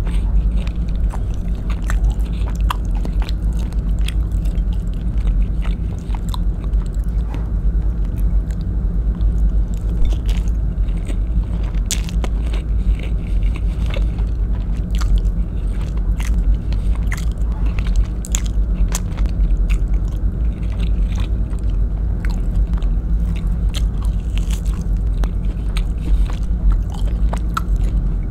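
Close-miked chewing of beef stewed in coconut milk, eaten by hand, with many short mouth clicks throughout, over a steady low rumble.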